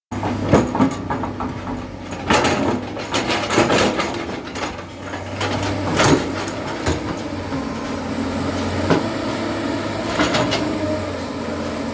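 Diesel engine of a JCB 3DX backhoe loader running steadily while it works, with repeated metallic clanks and knocks from the machine, the loudest about half a second, two seconds and six seconds in.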